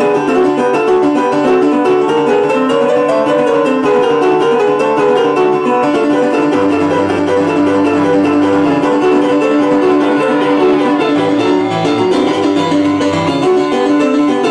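Rock'n'roll piano instrumental played fast on a stage keyboard: rapidly repeated right-hand chords over a low left-hand bass line.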